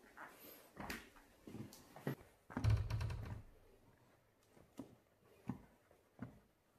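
Impala quad roller skates knocking and rolling on a wooden floor: a series of light knocks, with a heavier thump about two and a half seconds in.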